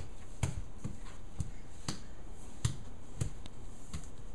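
A series of short light taps or knocks, about seven in four seconds at an uneven pace, each with a soft thud under it.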